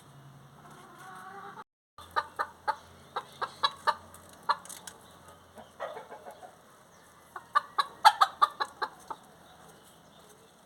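Chickens clucking: quick runs of short, sharp clucks, with a louder, denser run near the end.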